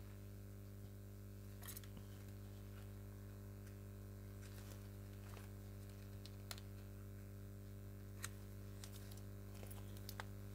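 Faint, scattered clicks and rustles of paper and craft materials being handled, over a steady low electrical hum.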